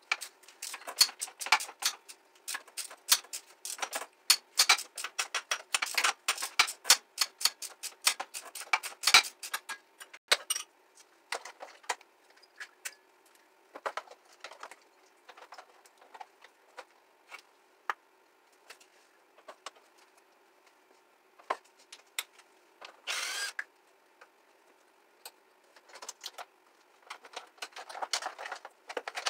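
Hand tools and metal parts clicking and clinking in quick, uneven runs as a moped is being dismantled, busiest in the first third, with a short rasp late on.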